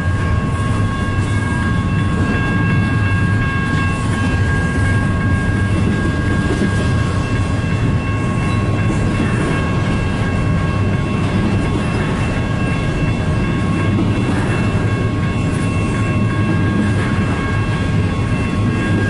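Double-stack intermodal freight train cars rolling past: a steady, unbroken rumble of wheels on rail, with a few steady high tones over it.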